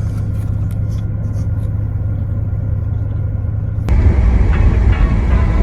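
Car driving, heard from inside: a steady low road rumble. About four seconds in it jumps suddenly to a louder, fuller rumble.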